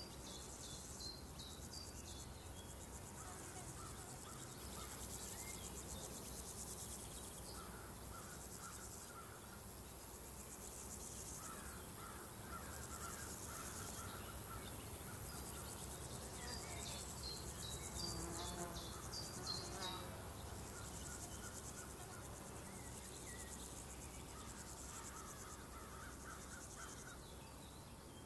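Rural outdoor ambience: a steady drone of crickets and other insects, louder for about ten seconds from about five seconds in, with scattered bird chirps and calls.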